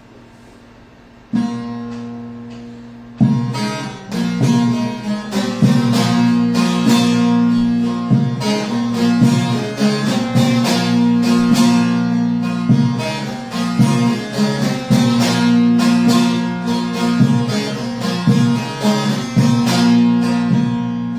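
Solo bağlama (long-necked Turkish saz): a single strummed chord rings out about a second in, then from about three seconds in a continuous fast-picked melody, the instrumental lead-in to a türkü.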